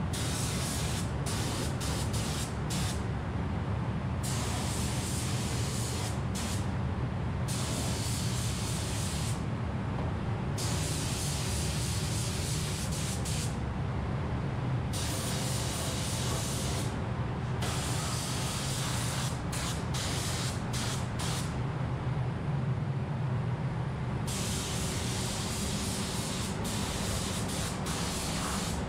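Gravity-feed air spray gun hissing as it sprays paint, in repeated bursts with short breaks as the trigger is pulled and released, over a steady low hum.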